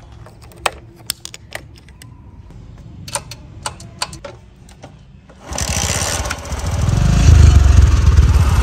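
A few sharp clicks and knocks from the motorcycle's key and controls, then about five and a half seconds in the single-cylinder motorcycle engine starts suddenly and runs, getting louder over the last couple of seconds.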